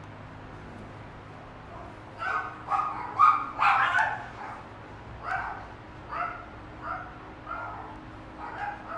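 A dog barking repeatedly: about a dozen short barks starting about two seconds in, the first few loudest and the later ones softer.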